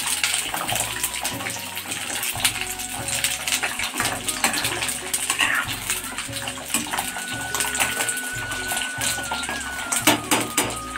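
Whole amla (Indian gooseberries) sizzling in hot oil in a metal kadhai while a steel ladle stirs them, scraping and clinking against the pan. There are a few sharper clinks near the end.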